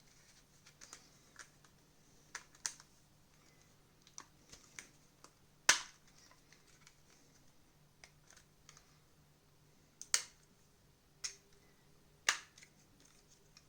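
Scattered sharp plastic clicks and taps as a TV remote's case is handled and worked at during disassembly, with three louder clicks about six, ten and twelve seconds in.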